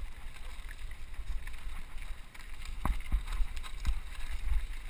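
Wind rumbling on a helmet-mounted camera's microphone as a mountain bike rolls over a gravel trail, with a few knocks and rattles from the bike over the bumps.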